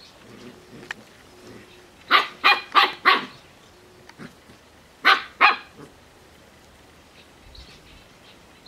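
Bouvier des Flandres puppy barking: four short barks in quick succession about two seconds in, then two more about five seconds in.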